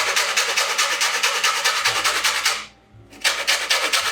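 Lemon zest being grated off on a fine grater: rapid, even rasping strokes in two runs, with a short break a little over halfway through.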